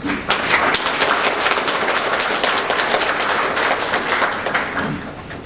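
Audience applauding: many hands clapping in a dense patter that starts right away and tapers off after about four and a half seconds.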